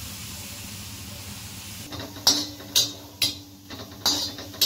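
Small dried fish dry-roasting on a hot griddle pan with a faint steady hiss; about two seconds in, a metal spatula starts scraping and tapping on the pan, about two strokes a second, as the fish are stirred.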